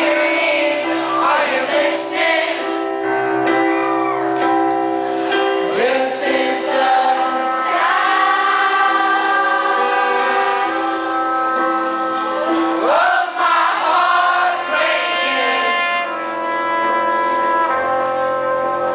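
Live band playing loud through a club PA, with several voices singing sustained notes together and a trumpet.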